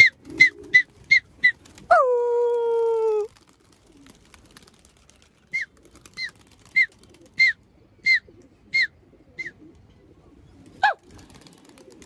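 Pigeon keeper whistling to put his flock up: a quick run of short, high whistles, then a long call that drops in pitch and holds about two seconds in. A slower run of short whistles follows, about one and a half a second, and a single falling whistle near the end.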